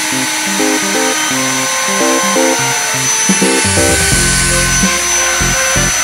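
Vacuum cleaner running steadily: an even whooshing hiss with a constant high whine. Music plays over it, a line of low notes changing every fraction of a second, with deeper notes joining about four seconds in.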